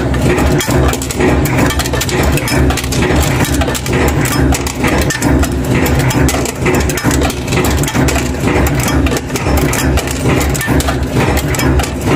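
Cold-forging bolt former running: a steady low machine hum under a rapid, continuous clatter of metal knocks.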